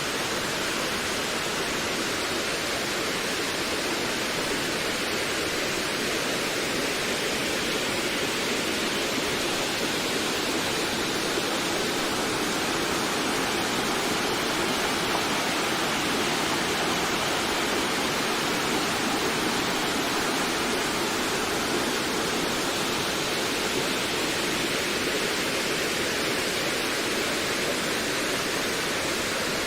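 Wind blowing steadily through forest trees, an even rushing hiss without gusts.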